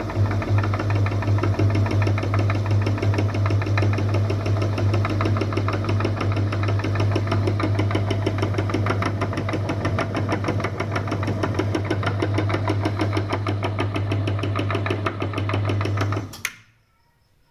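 Electric meat grinder's motor running with a strong steady hum and a fast, regular rattle, then switched off about a second before the end, stopping abruptly with a click.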